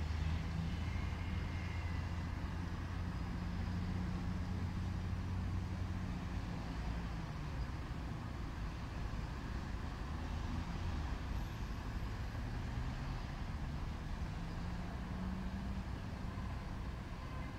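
City street traffic: cars driving past, a steady rumble of engines and tyres on the road. It is heaviest over the first several seconds, eases off, then swells again near the end as another car comes by.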